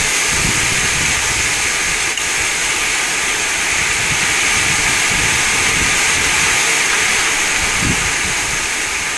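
Wind blowing through garden trees and foliage as a steady loud hiss, with gusts buffeting the microphone as uneven low rumbles, strongest near the start and again near the end.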